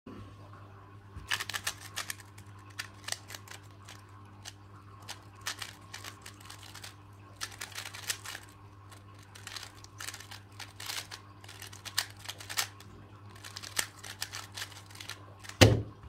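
3x3 Rubik's speed cube being turned rapidly in a solve: quick runs of plastic clicks in bursts with brief pauses. Just before the end there is a loud thump as the solved cube is put down and the hands slap onto the stackmat timer to stop it.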